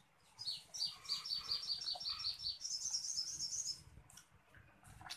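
A songbird singing: a run of quick, evenly spaced high chirps, about five a second, then a faster, higher trill that stops about four seconds in.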